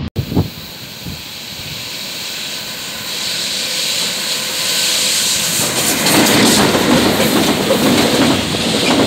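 Rolling-highway freight train with lorry-carrying wagons running past close by on a steel railway bridge. A short knock comes right at the start, then the train noise grows louder from about three seconds in and turns into a dense rumble with rapid wheel clatter for the last few seconds.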